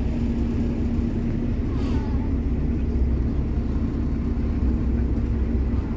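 Passenger ferry under way, its engines running as a steady low rumble with a constant hum.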